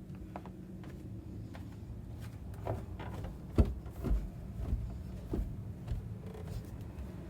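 Scattered light knocks and thumps, the loudest about three and a half seconds in, over a steady low hum.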